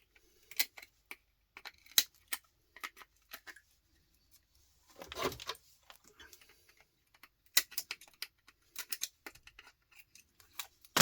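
Small hand tools cutting and prying components off an electronics circuit board: scattered sharp clicks and snaps, a longer scrape about halfway through, and a quick run of clicks later on.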